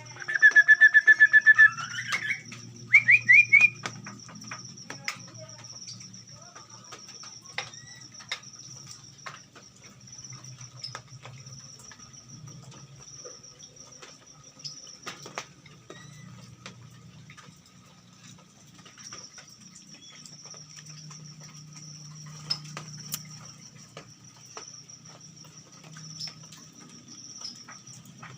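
A caged bird gives a loud, rapid trill of repeated notes for about two seconds, then a quick run of short rising notes. After that a steady thin high-pitched tone carries on, with faint scattered clicks and a low hum.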